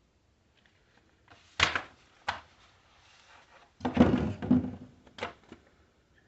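Parts of a coffee machine knocked and clattered while being handled. There is a sharp knock about one and a half seconds in and a short one just after. A longer, louder bout of clatter comes around four seconds in, and a last knock a second later.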